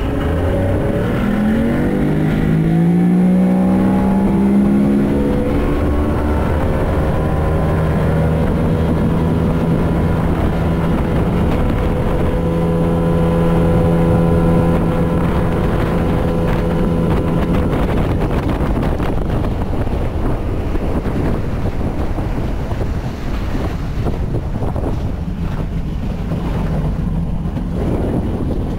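Small boat's outboard motor rising in pitch as it is throttled up over the first few seconds, then running steadily under way, with wind buffeting the microphone. The engine note fades into the wind noise after about eighteen seconds.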